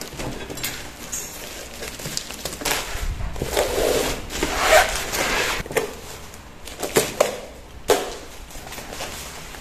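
Plastic bubble wrap crinkling and rustling as it is pulled off a cardboard box, with sharp crackles throughout, busiest around the middle, and a few louder snaps near the end.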